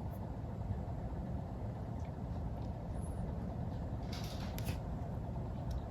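Steady low background rumble, with a faint brief rustle about four seconds in.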